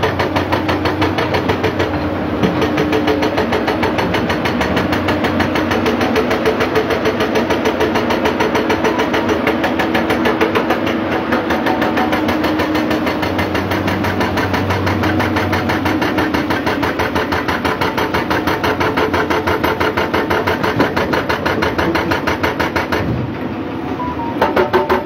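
Tracked excavators' diesel engines running under load, with the rapid, steady hammering of a hydraulic rock breaker breaking hard rock.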